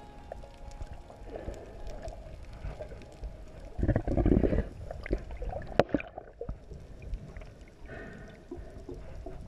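Muffled underwater water noise picked up by a submerged camera: churning and gurgling, with a loud low surge of rushing water about four seconds in and a single sharp knock shortly after.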